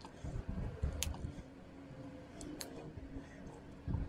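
Hard plastic model-kit tank parts being handled and fitted together: soft knocks and rubbing, with two sharp plastic clicks.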